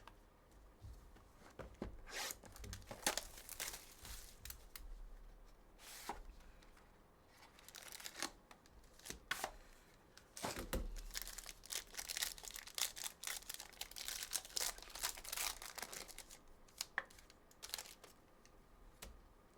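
Trading card packaging being torn and crinkled as cards are unpacked and handled, a run of short, sharp rustles and clicks that comes in bursts.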